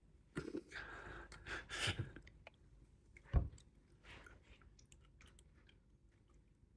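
A person chewing a mouthful of burnt stir-fried shredded potato close to the microphone, in short bursts, then a single low thump about three and a half seconds in.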